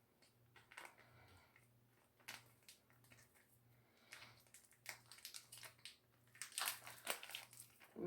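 Faint crinkling, rustling and soft clicks from hands handling a wet sheet face mask and its packet, growing busier in the second half, over a faint low hum.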